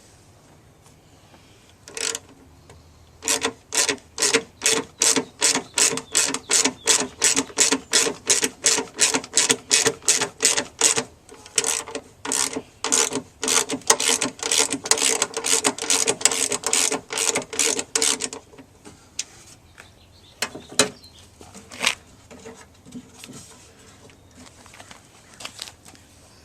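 Steady run of short metallic strokes from a hand tool worked on the door's inner steel, about two to three a second for roughly fifteen seconds, each with a brief ring, then a few scattered knocks near the end.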